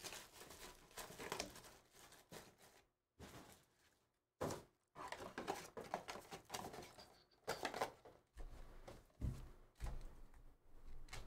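Trading cards and a foil pack wrapper being handled: soft, irregular rustling and sliding that comes and goes in short spells, with brief drop-outs to silence.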